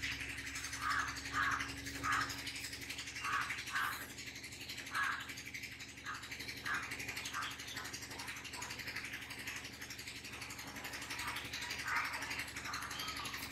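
Whiteboard marker squeaking in a dozen or so short, irregular strokes as words and lines are drawn on the board, over a steady low hum.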